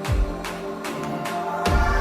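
Electronic background music with a steady beat: a deep falling kick drum about every second and a half over a quicker ticking rhythm and held synth tones.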